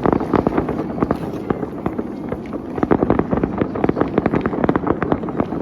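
Fireworks display going off in a dense, continuous run of bangs and crackles, many pops a second with no let-up.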